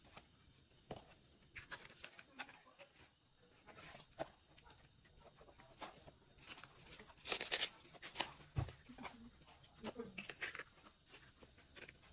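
Insects keep up one steady, unbroken high-pitched buzz outdoors. Over it come scattered light knocks and rustles of handling, with a louder burst of rustling about seven seconds in and a low thump just after.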